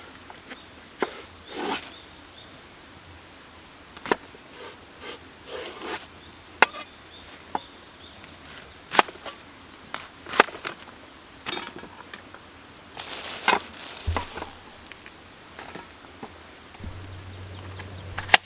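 Irregular sharp knocks and taps, one every second or so, with brief rustling between them, typical of hands-on camp cooking prep. A low steady hum starts near the end.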